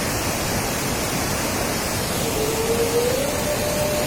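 Rushing flood water, a steady dense wash of noise with no break. A faint drawn-out tone rises slightly over it from about halfway in.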